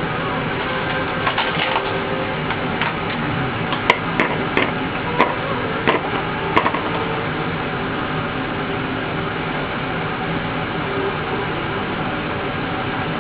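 Steel hex nuts clicking one at a time as they are set down on a woofer cone, about six sharp clicks over a few seconds, over a steady background hiss.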